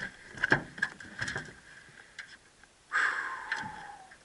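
Sharp knocks and clatter on an aluminum jon boat as a freshly landed redfish and the landing net are handled on the deck. About three seconds in comes a longer scraping sound whose pitch falls.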